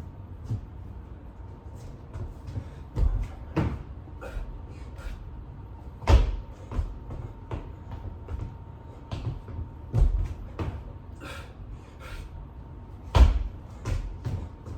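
Irregular knocks and thumps, louder ones about three, six, ten and thirteen seconds in, over a low background rumble.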